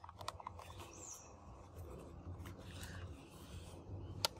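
Faint handling of a plastic toy cap pistol, with a few small clicks just after the start and one sharp click near the end. A bird chirps briefly about a second in.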